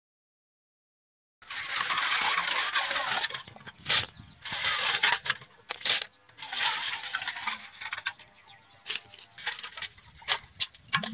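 Hands scooping river snails out of salt soaking water in a pot: water splashing and sloshing, with the snail shells clicking and clattering against one another and the pot. It starts after a short silence, and the clicks come thick near the end.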